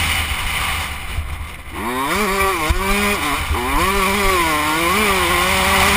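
KTM 105 two-stroke dirt bike engine heard from the rider's helmet, revving up and down under the throttle. The revs drop away and the engine goes quieter about a second in, then climb again about two seconds in and keep rising and falling, over a steady rush of wind.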